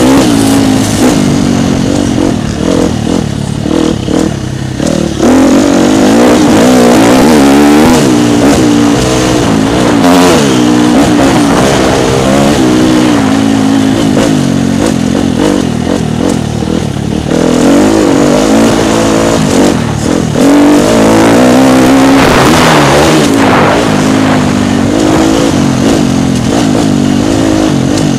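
Dirt bike engine revving up and dropping off again and again as it accelerates, shifts and backs off, heard close from on board the bike.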